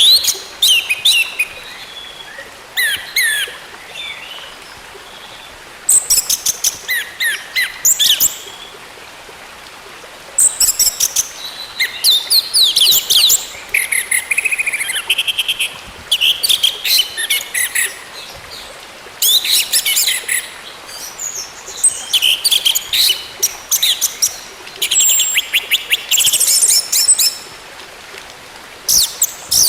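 Orange-headed thrush singing in repeated bouts of rapid, high, varied chirps and trills, each a second or two long, with short pauses between them.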